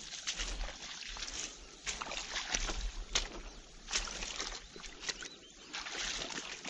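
Rubber-booted footsteps wading through shallow water and mud, each step a splashing slosh, at an uneven pace of about one or two steps a second.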